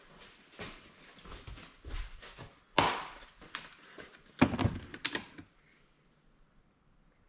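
Motor oil bottles being picked up and handled: scattered plastic clicks and knocks, with two louder thumps about three and four and a half seconds in.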